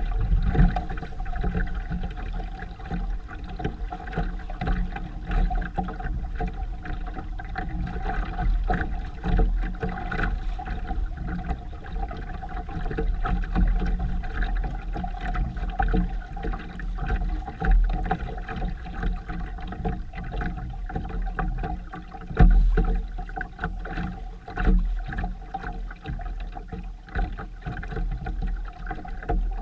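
Sailboat underway: a steady low hum with an uneven rush of wind and water noise over it.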